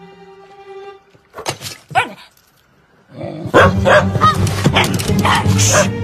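A cartoon dog barking: a few short yaps, then from about halfway a loud, rapid run of barking. Soft sustained music plays at the start.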